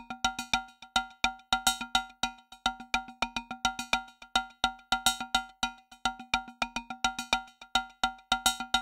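Percussion music track: a quick, steady rhythm of short ringing strikes at the same few pitches.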